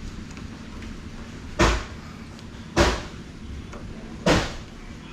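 Three heavy knocks against a wooden door, each sharp and loud with a short ring after it, about a second to a second and a half apart.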